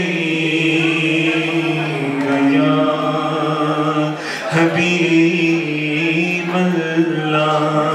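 A man singing an Islamic devotional salawat unaccompanied into a microphone, drawing out long held, ornamented notes.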